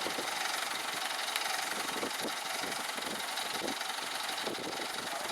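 Construction machine's diesel engine running steadily at idle.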